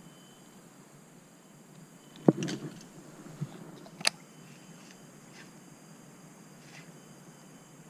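Handling noise from a baitcasting rod and reel: a sharp click about two seconds in with a brief rustle after it, a softer knock, then another sharp click about four seconds in, over a faint background hiss.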